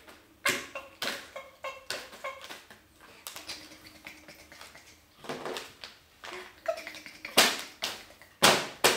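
Sharp hand claps, a few in quick succession and then louder single claps spaced a second or so apart, with a baby's short giggles and squeals among them.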